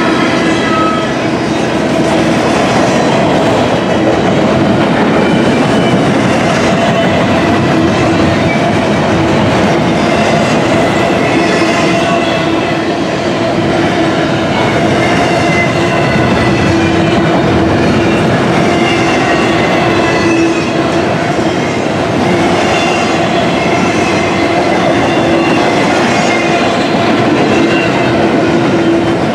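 Double-stack intermodal container cars of a freight train rolling past: a loud, steady noise of steel wheels running on the rails, with a steady tone running through it.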